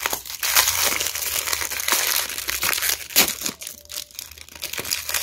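Crinkly pink plastic wrapper of an L.O.L. Surprise toy being crumpled and pulled open by hand, a dense crackling that eases off for about a second past the middle before picking up again.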